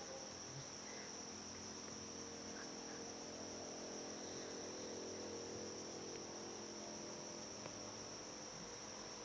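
Steady high-pitched chirring drone that holds unchanged throughout, over a faint low hum, with no clear rise and fall of snoring breaths.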